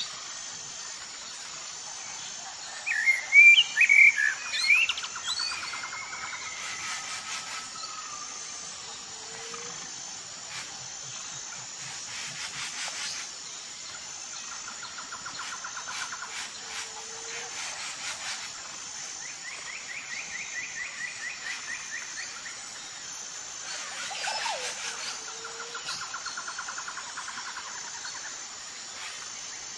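Songbirds singing: a loud run of quick chirps and warbles about three to five seconds in, then short even trills repeated every few seconds, over a faint steady high-pitched background.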